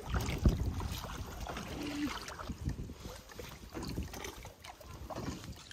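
Small rowboat on the water, with irregular knocks and splashes of the oars and wind buffeting the microphone.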